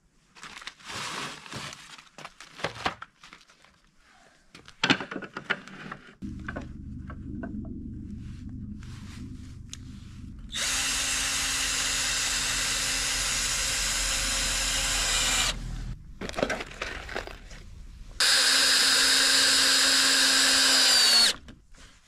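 Electric drill running at a steady speed in two long runs, about five seconds and then three seconds, each stopping abruptly. Knocks and handling of the wooden boards come before, and a low steady hum starts underneath about six seconds in.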